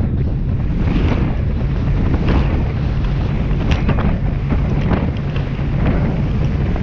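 Wind buffeting the microphone on a rigid inflatable boat running fast through choppy sea. The hull slaps through the waves, throwing splashes of spray every second or so, over a steady low engine drone.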